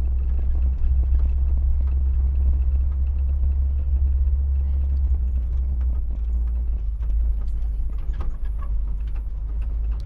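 Car driving slowly along a rutted dirt road, heard from inside the cabin: a steady low rumble of engine and tyres, with a few light knocks about eight seconds in.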